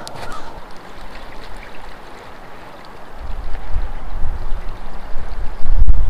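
Shallow creek water running steadily. About three seconds in, a loud low rumble joins it and grows toward the end.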